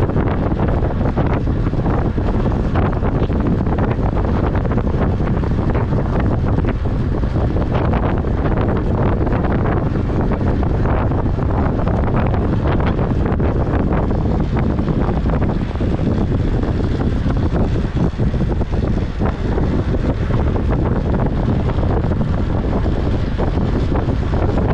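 Wind rushing over the microphone of a camera on a track bike moving at race speed: a steady, loud, low rush with constant buffeting.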